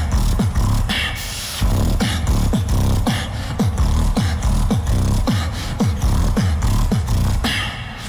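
Beatboxing: a steady groove of deep, pitch-dropping kick-drum sounds, about two or three a second, over a continuous low bass, punctuated by sharp hissy snare sounds roughly once a second.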